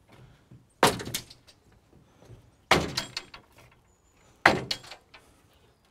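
Wooden rear cabin doors of a narrowboat being shut, three knocks about two seconds apart.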